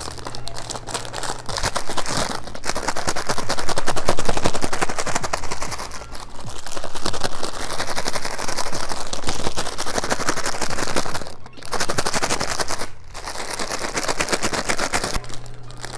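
A small plastic snack bag being shaken hard, with matcha-coated strawberry chocolates and matcha powder rattling and crinkling inside in a fast, continuous clatter, pausing briefly twice near the end.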